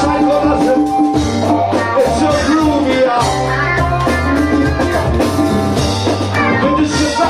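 A live band playing loudly: a singer into a microphone over electric guitar and drum kit.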